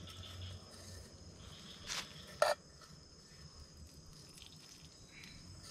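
Night insect chorus of crickets: a steady, high-pitched trilling. About two seconds in there are two short knocks, the second one louder.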